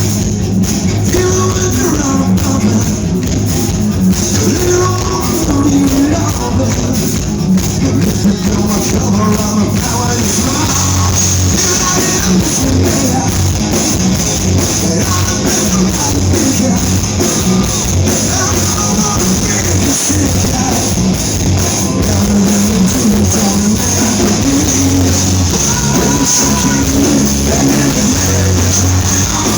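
Live rock band playing loudly, with drums, guitar and vocals, heard from the crowd.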